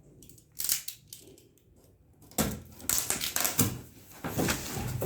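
Packaging being handled during unboxing: a brief rustle, then a stretch of dense crinkling and rustling with quick clicks from about halfway through.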